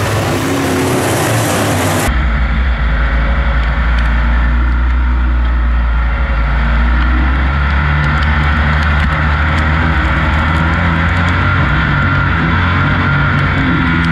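For the first two seconds, race cars on a dirt track are heard through heavy wind noise. The sound then cuts to a dirt-track race truck's engine heard from a camera on its hood, a loud steady low drone under racing load, its pitch shifting a little midway.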